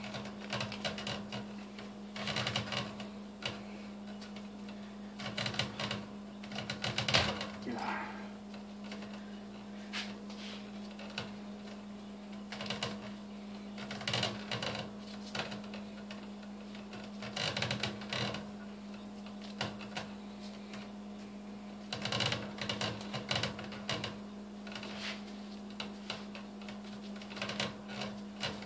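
Short bursts of crackling and clicking every second or two as a gray fox's hide is worked and pulled loose by hand from the carcass hanging on a chain, under a steady low hum.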